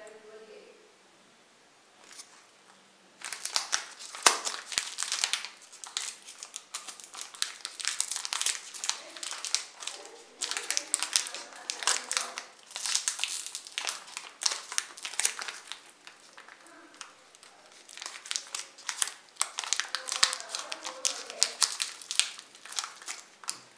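Plastic cracker-pack wrapper crinkling and rustling as hands tear it open and unwrap the pack. It comes in dense, irregular bursts starting about three seconds in, with a short pause about two thirds of the way through.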